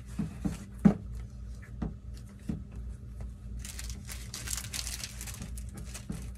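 Paper and sticker sheets being handled: light taps and handling clicks, then a spell of rustling from about three and a half seconds in, as stickers are searched for. A low steady hum runs underneath.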